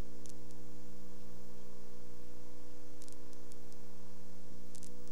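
Steady electrical hum with a layer of hiss and no clear sound event, only a few faint ticks.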